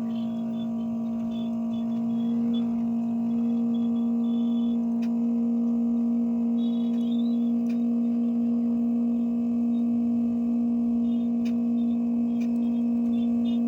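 A steady electrical hum at one fixed pitch, with faint short high chirps and a few clicks over it.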